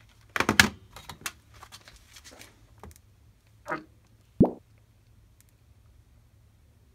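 Handling clicks and knocks of a metal hand injector being dipped into a glass cup of hot melted soft-lure plastic to draw up a shot: a cluster of sharp clicks about half a second in, light ticks after, and a single sharp knock at about four and a half seconds.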